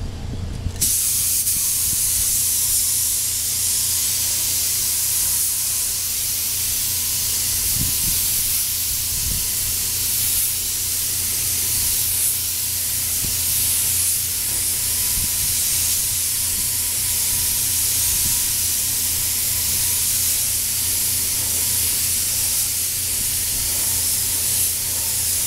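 Compressed-air gravity-feed spray gun hissing steadily as it sprays green basecoat onto primed motorcycle fairing panels. The hiss cuts in about a second in and holds an even level throughout.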